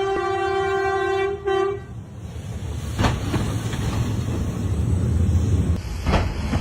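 A train horn sounds one long, steady note and cuts off about two seconds in. A loud, low rumble follows as the train runs past, with a sharp knock about three seconds in and another about six seconds in.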